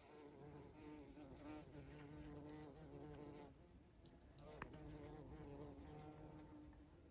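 Bees buzzing faintly, a low drone that wavers in pitch and fades in and out as they move among the flowers. About halfway through there is a sharp click, followed by two short high chirps.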